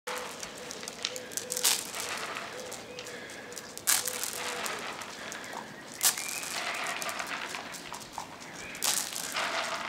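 Huskies and akitas moving about on wet paving tiles: paws and claws scuffing and splashing in a steady crackly noise, with four sharp knocks spread through it.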